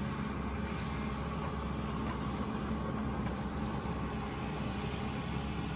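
Engine of heavy demolition machinery running steadily, a low drone with no sharp crashes.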